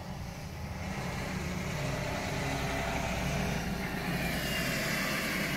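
A vehicle engine running steadily with a low hum, heard from inside a pickup cab, growing slowly louder with a rising hiss.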